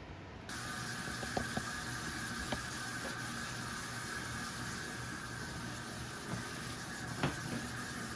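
A water tap running steadily into a sink. It comes on about half a second in, with a few small knocks over it.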